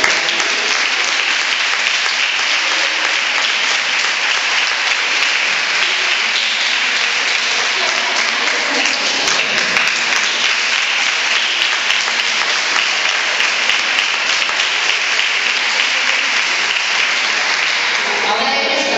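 A crowd clapping continuously in a long, steady round of applause.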